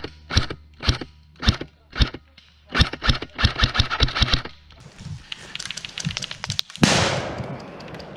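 Airsoft guns firing: single shots about two a second, then a quicker burst of shots about three to four and a half seconds in. A loud rush of noise about seven seconds in fades away.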